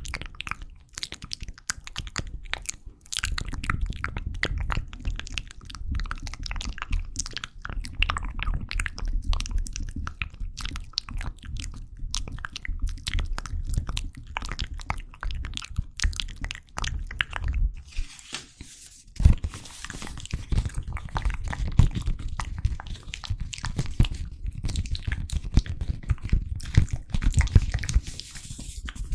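Close-miked ASMR mouth sounds: a dense, rapid run of small clicks and smacks over a low rumble. There is a short pause with a soft hiss a little past the middle, then the loudest single click.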